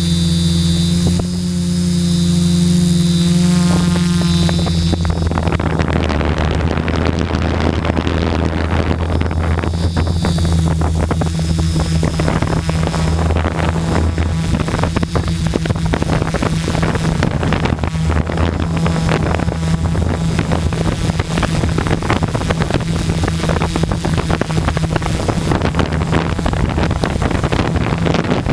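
Brushless motors and propellers of a 550mm quadcopter humming steadily, heard from the GoPro on board, with a high motor whine at first. About five seconds in, wind buffeting the microphone grows and covers much of the whine.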